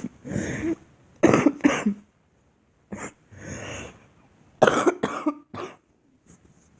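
A girl coughing in short fits: two coughs about a second in, a single one near three seconds, then three quick coughs from about four and a half seconds in, with breaths between them.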